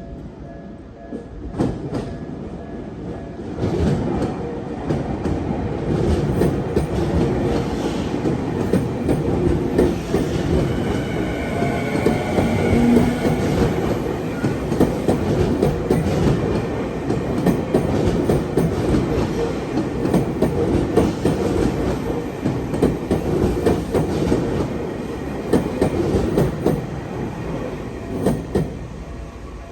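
Tokyu electric train passing over a level crossing, its wheels clacking over the rail joints in a long run of clicks. It swells a few seconds in and fades near the end.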